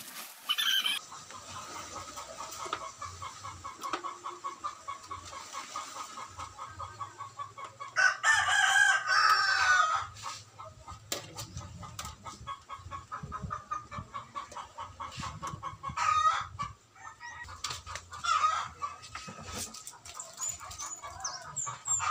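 Rooster crowing once, loud and about two seconds long, about eight seconds in. Shorter chicken calls come before and after it.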